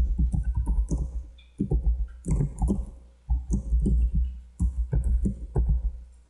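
Typing on a computer keyboard: quick, irregular keystrokes, each with a dull low thump, in short bursts with brief pauses between them.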